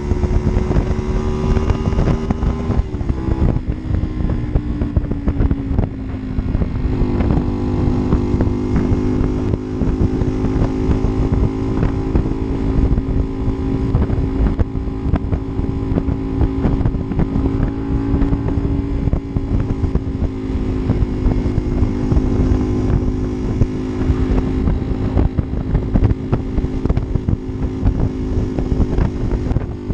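Honda Varadero 125's small V-twin engine running steadily, with wind on the microphone. The engine note dips about three seconds in, climbs back about seven seconds in, then holds steady.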